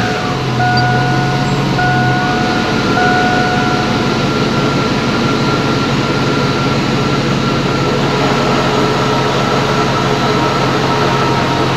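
GMC truck engine idling steadily just after starting, running on a freshly replaced idler pulley, with a low even hum and a thin steady tone over it.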